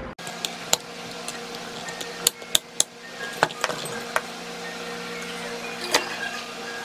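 Sharp metallic clicks and taps of needle-nose pliers and a circuit board being handled as the leads of a new resonant capacitor are fitted through the board, about a dozen clicks with a quick cluster a couple of seconds in, over a steady background hum.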